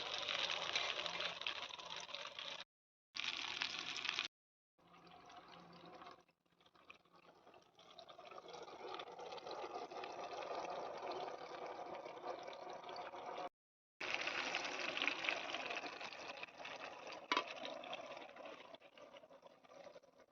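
Chicken leg pieces frying in hot oil: a continuous crackling sizzle, stopping abruptly a few times for a moment and dropping off near the end.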